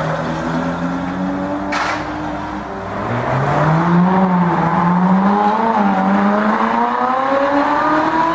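Car engine running, then accelerating with its pitch climbing steadily over the second half, with a short sharp noise about two seconds in.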